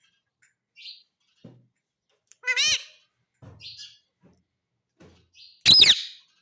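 Indian ringneck parrot calling: a loud call rising in pitch about two and a half seconds in, and a harsher, louder squawk near the end, with soft short chirps in between.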